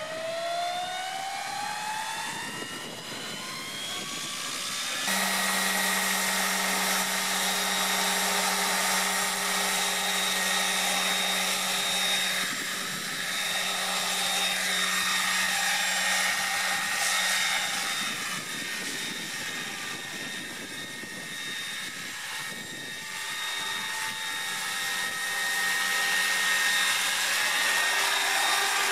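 Electric scale RC helicopter (Bell UH-1Y Venom model with a four-blade main rotor, driven by a Kontronik 80 HV motor) spooling up with a rising whine over the first few seconds. About five seconds in it settles to a steady pitch, with motor and drivetrain whine over rotor noise, as it lifts into a hover and flies.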